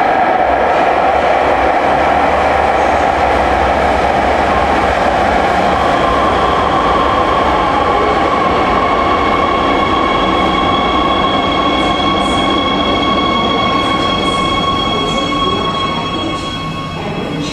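Hohhot Metro Line 2 subway train pulling into an underground station: a loud, steady rush of wheels on rail. From about six seconds in a steady high whine joins it, and the sound fades as the train slows to a stop near the end.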